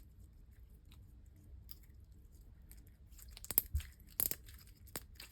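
Slime being mixed together, giving faint sticky clicks and crackles, with a cluster of louder pops about three to five seconds in.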